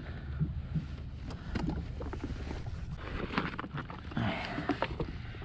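Water lapping and splashing against the hull of a Sea-Doo Fish Pro personal watercraft, with a steady low wind rumble on the microphone and a few small knocks and clicks.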